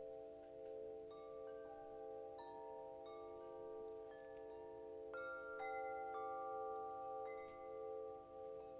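Soft meditation background music: a steady low drone that swells and fades slowly, with chime notes struck every second or so, each ringing on for several seconds. The music grows a little louder about five seconds in, when several brighter chimes sound together.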